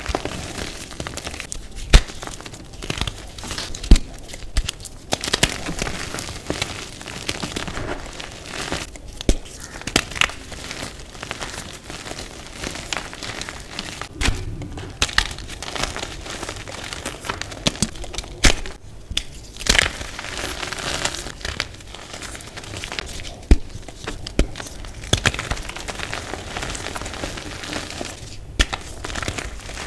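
Green dyed reformed gym chalk crushed and crumbled by hand: a dry, powdery crunching that runs on without a break, broken by frequent sharp snaps as chunks break apart, some much louder than others.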